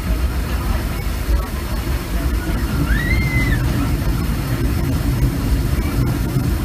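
Steam train of the Disneyland Railroad running along the track, heard from an open passenger car as a steady low rumble. About three seconds in, a short whistle-like tone rises and then falls.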